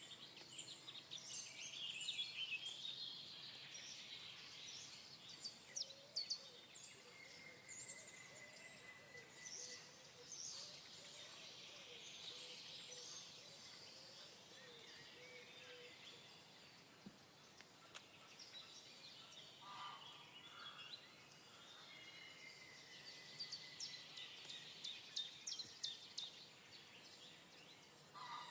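Faint chorus of wild birds chirping, full of quick high notes, busiest in the first half and again near the end, with a few long held whistles and a lower warbling call.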